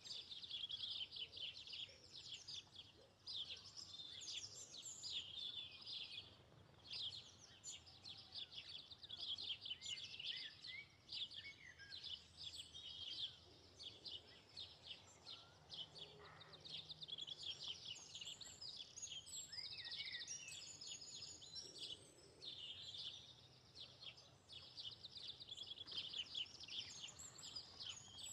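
A flock of small birds chirping and twittering continuously, many rapid overlapping chirps and short trills at once.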